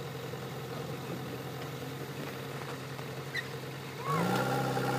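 Heavy diesel engine idling steadily; about four seconds in it gets louder and its pitch rises, as if revved up.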